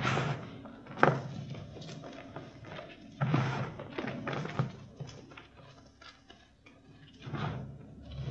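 Reformed chalk being crushed and crumbled between the fingers: crunching and gritty crumbling in irregular bursts, with the sharpest crunch about a second in.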